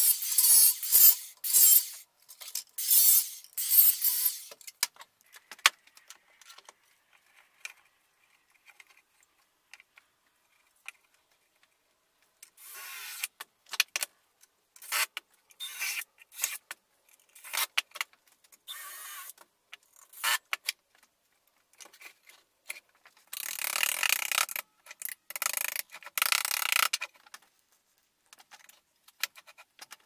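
Angle grinder cutting off the protruding tips of steel screws in several short bursts. After it comes a string of shorter, separate workshop tool noises, the loudest a run of bursts about three quarters of the way through.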